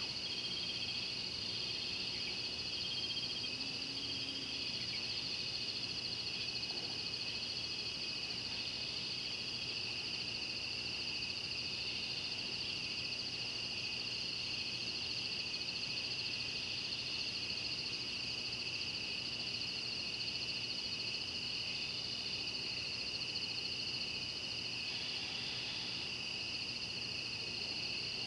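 Steady, high-pitched chorus of night insects and frogs, in two unbroken shrill layers, with a few short chirps in the first couple of seconds.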